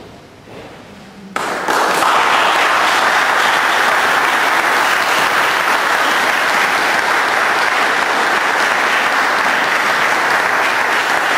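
Audience applause that breaks out suddenly about a second and a half in and then holds at a steady, loud level.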